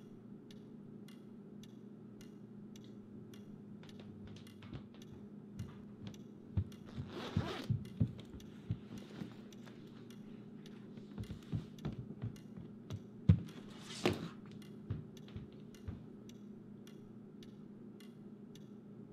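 A clock ticking steadily over a low room hum. In the middle stretch come irregular knocks and a couple of short rustles from someone moving about and handling things; the loudest knock is about 13 seconds in.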